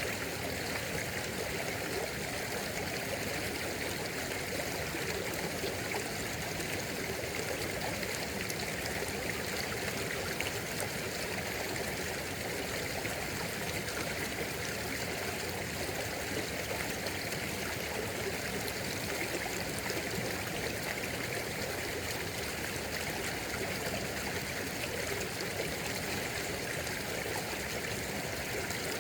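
A stream running steadily, with water flowing and trickling in an even, unbroken rush.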